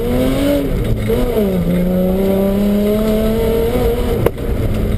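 BMW rally car engine under hard driving, heard from inside the cabin: the pitch rises, dips about a second and a half in, then holds steady. A single sharp knock a little past four seconds.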